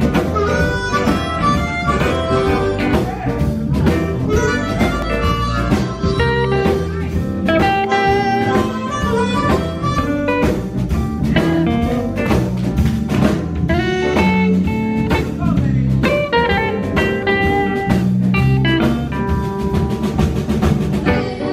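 Live blues band playing: electric bass, electric guitar, drum kit and keyboard, with a harmonica playing the lead line through a vocal microphone.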